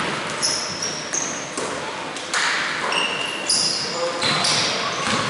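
Basketball shoes squeaking on a hardwood court in several short, high-pitched chirps as players move during play, with voices.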